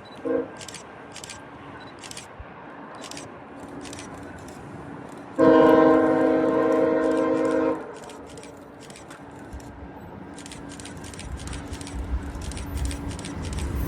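Locomotive air horn: a brief toot just after the start, then one long steady blast of about two seconds, a little past a third of the way in. Near the end the low rumble of an approaching train grows louder.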